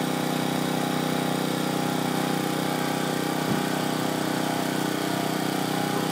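An engine idling steadily, an even drone that holds the same pitch throughout.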